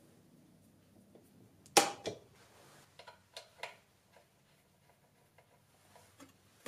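A sharp metallic clack about two seconds in, then a few lighter clicks: steel parts of a mini milling machine's head and column being handled during disassembly.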